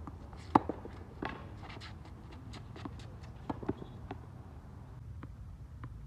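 A tennis racket strikes the ball with a sharp pop about half a second in. Fainter hits and ball bounces follow from the far end of the hard court, with light footsteps and shoe scuffs.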